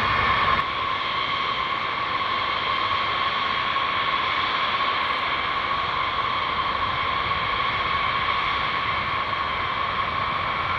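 Distant B-52H Stratofortresses taxiing: their Pratt & Whitney TF33 turbofan engines make a steady high whine over a rushing hiss. The low rumble drops away about half a second in.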